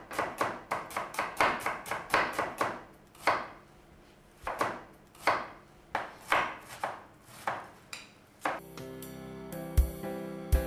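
A kitchen knife chopping onion on a cutting board: quick strokes at about four a second at first, then slower, spaced cuts. About two seconds before the end, the chopping stops and music comes in.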